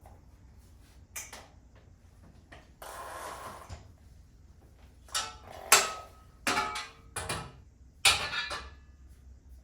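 Handling noises: a brief scrape or rustle about three seconds in, then a run of sharp knocks and clatters, like objects being set down and moved around.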